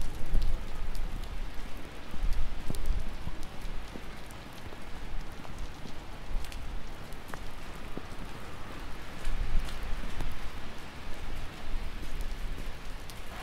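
Rain falling steadily, with many small sharp drop ticks over an even hiss and a low rumble underneath.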